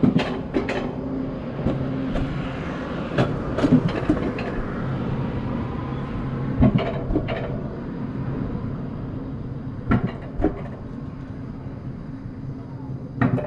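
Wiegand alpine coaster sled running along its steel rails: a steady rumble of the wheels on the track, with sharp clacks several times, often in pairs about half a second apart, as the wheels pass over the rail joints.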